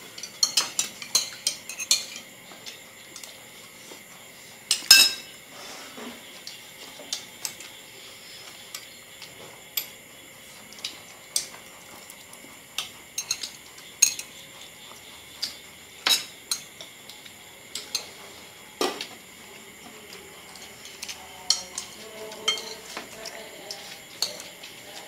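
Spoons and chopsticks clinking and scraping on ceramic plates and bowls as several people eat: irregular sharp clinks, the loudest about five seconds in.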